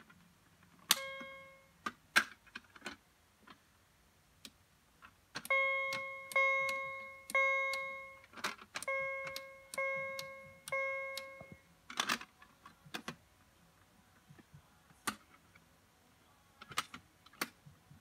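Fire alarm sounding a chime tone: a single chime, then two groups of three ringing, decaying chimes. Sharp clicks and knocks from handling a fire alarm pull station fall between them.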